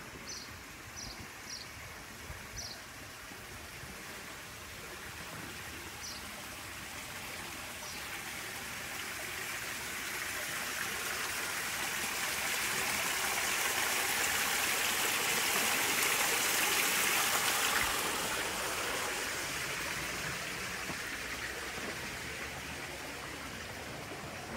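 Water from a tiled wall fountain splashing into its basin, a steady rushing that grows louder, peaks about two thirds of the way in, then fades. A few short high chirps come in the first eight seconds.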